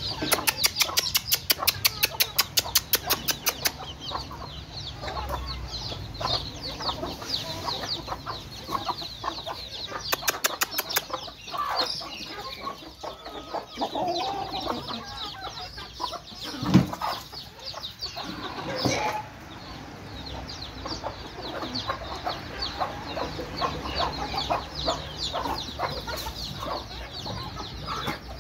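A flock of chickens feeding: hens clucking and chicks peeping throughout. Near the start a fast, even rattle of about ten beats a second lasts some three seconds, with a shorter one around ten seconds in, and a single sharp knock comes about two-thirds of the way through.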